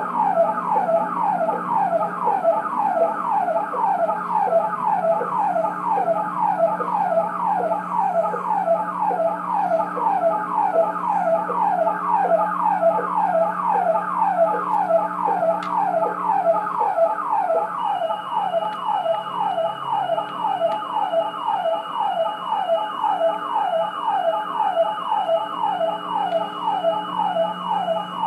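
Police siren sounding in rapid yelp mode: a quick falling tone repeating evenly without a break. A thin steady high tone joins about two-thirds of the way in.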